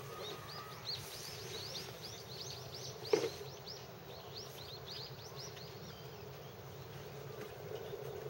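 A bird calling a quick series of short, high chirps, about three a second, which stop about six seconds in, over steady outdoor background noise. A single sharp knock about three seconds in.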